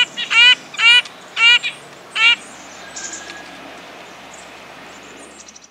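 Red-breasted nuthatch calling: five short calls in quick succession over about two seconds, then a faint steady background.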